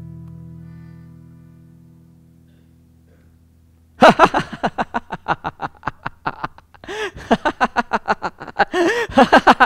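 A strummed acoustic guitar chord rings and slowly fades out over the first three seconds or so. About four seconds in, a man breaks into loud, rapid laughter, with a brief pause midway.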